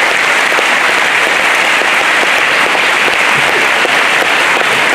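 Large audience applauding steadily in a hall.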